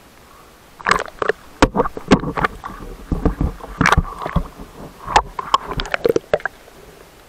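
Water splashing and sloshing against a waterproof camera held at the waterline as the diver moves through shallow water. The irregular splashes start about a second in, and the camera briefly dips underwater near the end.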